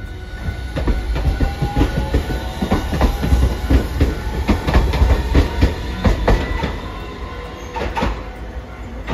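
Hiroshima Electric Railway 5200-series Green Mover APEX low-floor tram passing close by, its wheels clacking on the track in a rapid, uneven run of clicks over a low rumble, with a faint rising whine. The clacking eases off after about six seconds.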